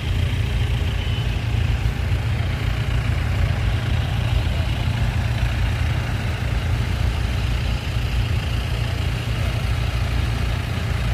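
Wind buffeting the microphone on an exposed mountainside: a steady low rumble with a hiss above it.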